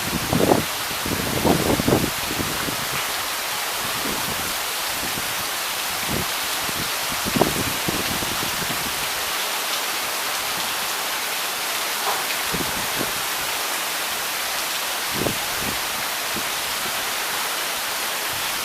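Steady rain falling, an even hiss, with a few brief louder patters scattered through it.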